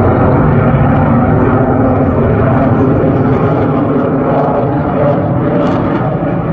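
F-22 Raptor's twin Pratt & Whitney F119 turbofan jet engines, a loud steady rushing roar through a phone microphone as the fighter flies its display.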